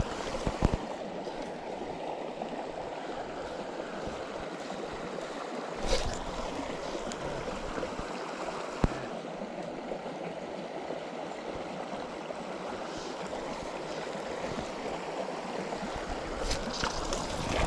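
Water of a rocky mountain stream running steadily over stones, with a couple of brief knocks about six and nine seconds in.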